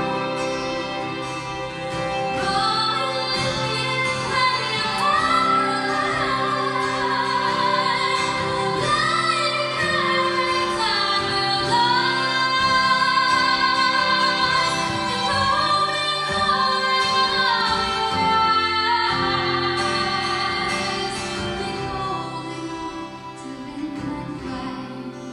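Live acoustic music: a woman singing long, gliding notes over violin and other sustained instruments. The music grows quieter toward the end.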